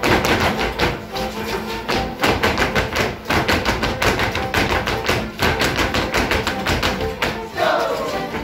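Folk dance music carrying a melody, over quick, rhythmic stamping of Negritos dancers' shoes on a concrete floor.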